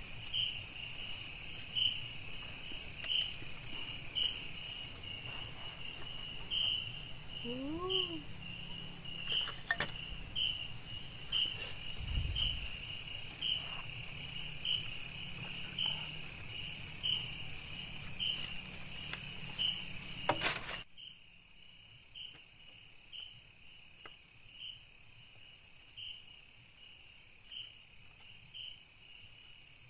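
Night-time forest insect chorus: a steady high buzz of crickets and other insects with a regular chirp repeating a little over once a second. A brief rising-and-falling call comes about eight seconds in, and the low background noise drops away suddenly about two-thirds of the way through while the insects carry on.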